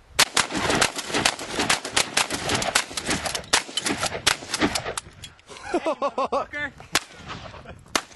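Rapid gunfire: many shots in quick succession, several a second, for about five seconds. It is followed by a few seconds of a wavering, swooping voice and a few more scattered shots near the end.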